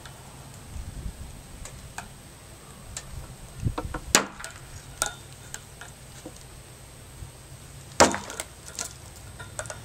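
Two sharp strikes of a double-edged dagger blade slashing into a cloth-wrapped plastic water bottle, about four seconds apart, the second the louder, with a few light clicks between them.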